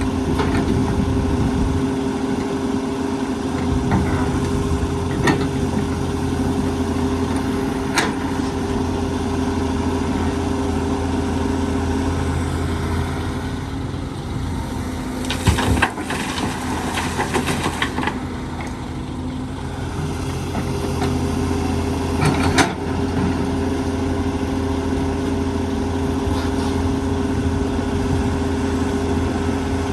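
Diesel engine of a working excavator running steadily, with a few sharp clanks and a few seconds of dense rattling about halfway through.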